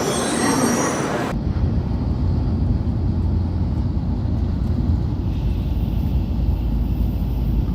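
Railway train noise: a bright hiss for about the first second, then an abrupt switch to the steady low rumble of a train running.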